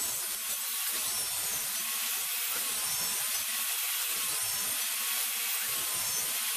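Table saw running steadily, its blade cutting small pieces off a wooden block on a crosscut sled.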